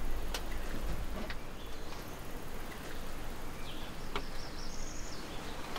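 Woodland ambience with birds and insects calling, broken by three sharp clicks.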